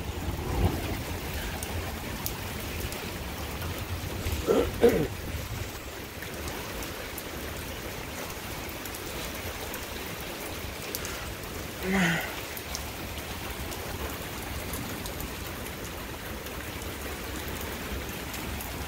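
Steady rain falling, an even hiss of rain on surfaces. Two brief voice sounds cut in, about five seconds in and again around twelve seconds.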